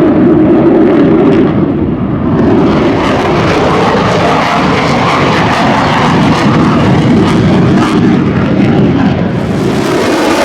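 Jet engine of an F-35A Lightning II fighter (single Pratt & Whitney F135 turbofan), loud and continuous during a display flight, its hiss growing stronger about two seconds in.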